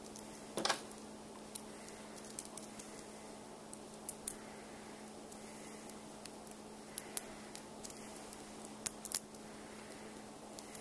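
Small steel construction-kit parts and a screwdriver clinking and clicking as a screw is driven into a metal bracket: irregular light metallic clicks, the loudest about half a second in and a quick pair near the end. A faint steady hum runs underneath.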